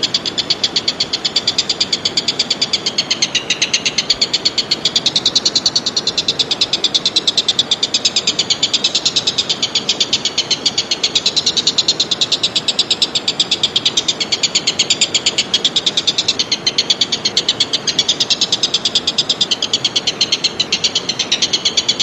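A high, rasping animal call made of rapid, evenly spaced pulses, kept up without a break at a steady rate.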